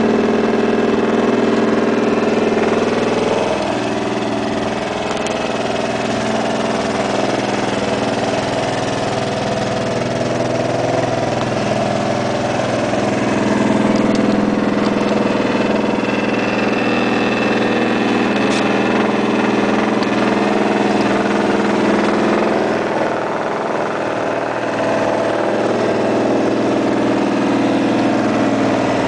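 2006 Vespa LX150 scooter's single-cylinder four-stroke engine idling steadily, its speed shifting slightly a few times.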